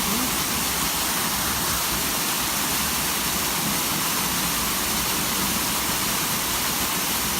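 Steady rush of a waterfall, an even roar of falling water.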